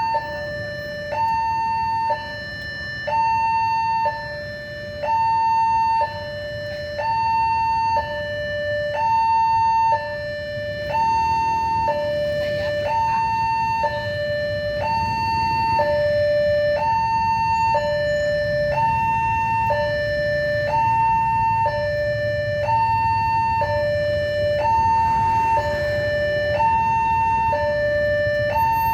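Indonesian railway level-crossing warning siren sounding a steady two-tone alternation, high and low notes each held about a second, signalling that a train is approaching and the crossing is closed. A low rumble builds up underneath from about ten seconds in.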